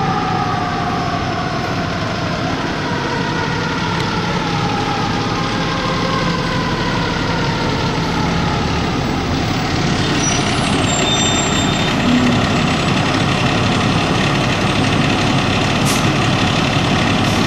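Fire engine siren falling in pitch and fading over the first few seconds as the truck drives away, giving way to a steady rumble of heavy truck engine and street noise.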